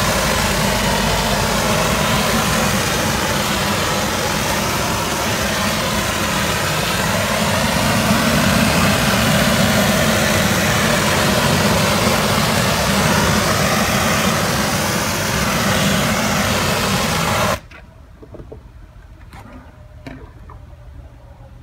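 Griot's Garage Air Foamer, a compressed-air foam sprayer, hissing steadily with a low rumble as it sprays a dry foam, cutting off suddenly about 17 seconds in.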